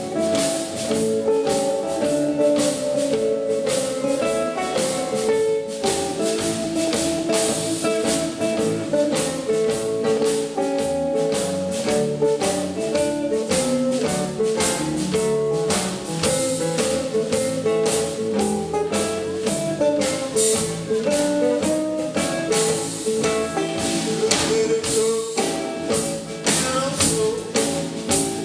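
A live blues band playing an instrumental passage: electric guitar lines over electric bass and a drum kit, with a steady cymbal beat.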